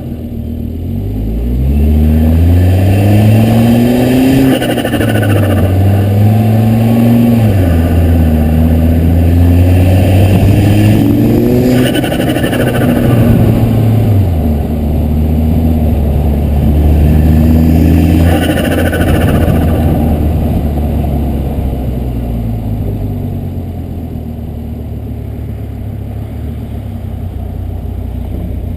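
Volvo S60R's turbocharged inline-five accelerating hard through several gears, its pitch climbing and dropping at each shift, with brief fluttering bursts from the turbo's compressor as the throttle closes: compressor surge, because the diverter valve line has popped off and the valve can no longer vent the excess boost. In the last third the engine settles to a quieter, steadier cruise.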